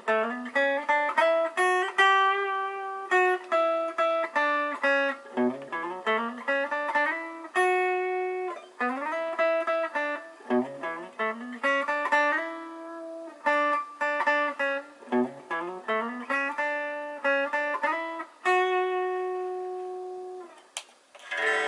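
Greco Les Paul-style electric guitar playing single-note melodic phrases. Each phrase opens with a slide up from a low note, followed by clear sustained notes. A sharp click comes near the end as the playing stops.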